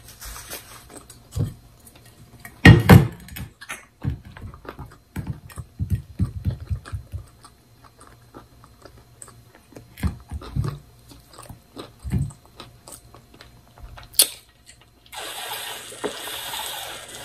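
Close-miked mouth sounds, lip smacks and chewing, with a loud knock about three seconds in. Near the end, a steady rush of water as she drinks from an insulated water bottle.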